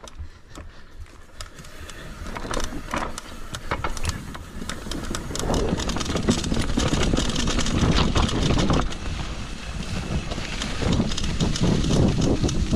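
Mountain bike rolling down a dirt trail: tyre noise and rattling over rough ground with wind on the microphone, growing louder over the first several seconds as it picks up speed.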